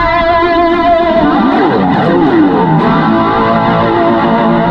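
Electric guitar playing a lead line: held notes with vibrato, then a run of sliding, bending notes about halfway through, settling back onto held notes near the end.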